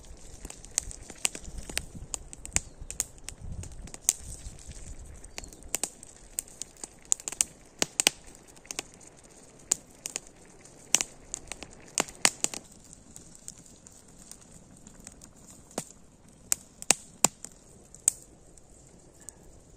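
Wood campfire crackling, with irregular sharp pops and snaps through the whole stretch, a few of them loud.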